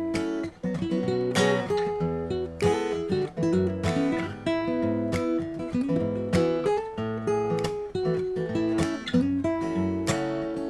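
Shelter Celtic 100 dreadnought acoustic guitar playing solo, strummed chords with picked melody notes in a steady rhythm.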